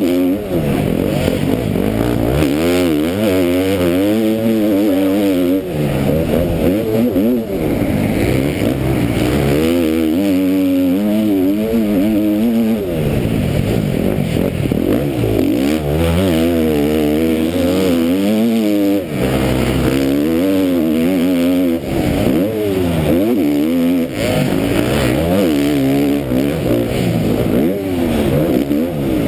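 KTM MX2 motocross bike's engine at race pace, heard from the rider's helmet, revving hard and dropping back over and over as the throttle is opened and shut through the track's corners and jumps.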